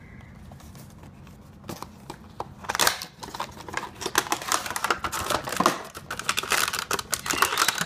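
Cardboard box being opened and the bottle opener's clear plastic packaging handled: a dense run of crinkling and small clicks, starting about three seconds in.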